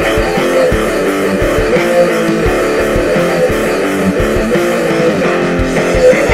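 Music: a guitar-led track with sustained chords over a steady beat.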